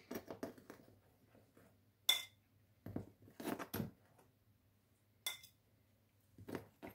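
Scattered light clinks and taps of a kitchen utensil against a small bowl and baking dish while hot buns are coated with garlic butter. Two of the clinks, about two seconds in and past five seconds, ring briefly.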